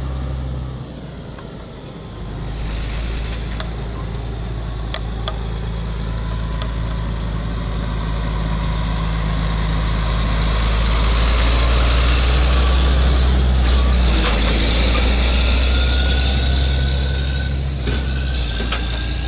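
Diesel engine of a large John Deere tractor running steadily as it drives by towing an applicator toolbar. It grows louder as it passes close, about two-thirds of the way in, then eases off.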